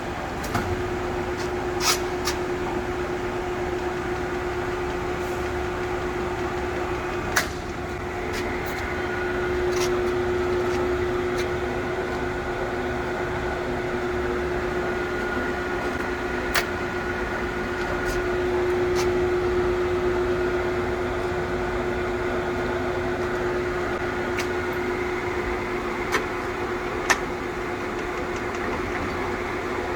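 Acra 2290 engine lathe running: a steady machine hum with a clear steady tone that comes in right at the start and swells twice, with a few sharp clicks now and then.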